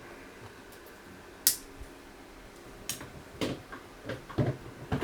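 Sharp clicks and light knocks from parts and wires being handled on a workbench: single clicks about a second and a half in and again near three seconds, then a quick run of knocks near the end. An electric fan hums steadily underneath.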